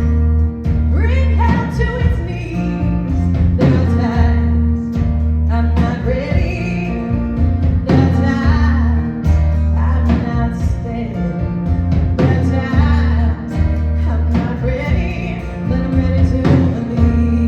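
Live band playing a song with a singer over heavy sustained bass notes and steady drum hits.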